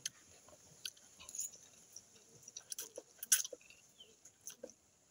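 A person eating a forkful of spaghetti close to the microphone: wet chewing and slurping, with irregular sharp mouth smacks and clicks, the loudest a little past three seconds in.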